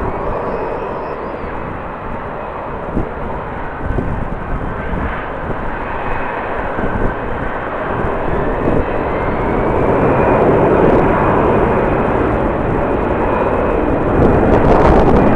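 Jet airliner engines roaring with a faint high whine, growing louder over the last few seconds, with strong wind buffeting the microphone.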